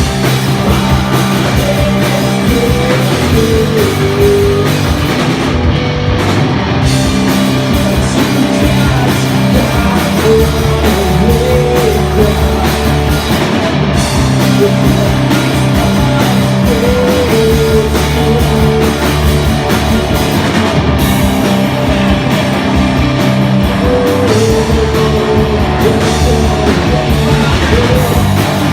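A rock band playing live and loud: guitars and drum kit together at a steady full volume, with a short wavering melodic figure coming back every several seconds.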